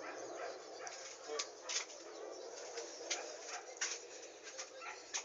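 A two-month-old baby feeding, making the feeding-time noises: irregular soft sucking and smacking clicks, a few a second, with small throat noises.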